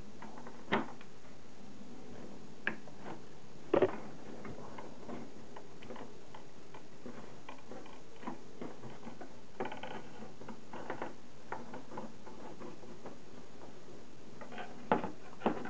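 Scattered clicks and light taps of a replacement laptop digitizer glass panel being handled and pressed down onto the taped lid frame, with sharper knocks about a second in, a double knock near four seconds in, and two more near the end.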